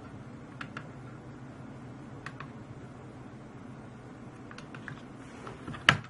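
Light mechanical clicks from a PID temperature controller rig: two quick pairs early on, a small cluster a little later, and one much louder click near the end, over a steady low hum.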